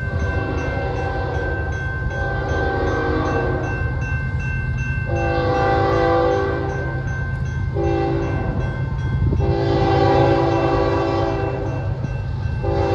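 Locomotive horn sounding a series of blasts, about five, each one to two seconds long with short gaps between them, over the steady low rumble of the train.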